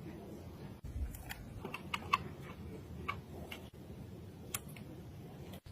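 Scattered light clicks and taps, irregularly spaced, with a cluster around the second to third second, over a low steady rumble.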